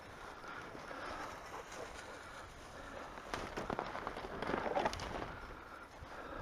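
Irregular footsteps crunching and rustling through dry field vegetation, busier about three to five seconds in.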